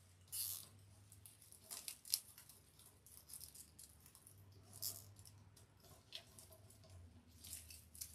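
Plastic deco mesh crinkling and rustling as it is handled and fastened onto a wire wreath frame, in short irregular scratchy bursts.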